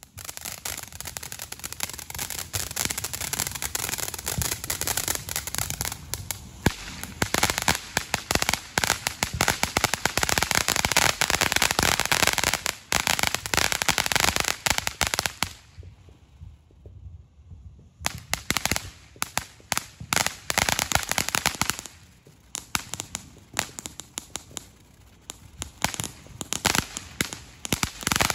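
Ground fountain fireworks spraying sparks with dense, rapid crackling. The crackle stops for about two seconds midway, then comes back, growing sparser toward the end.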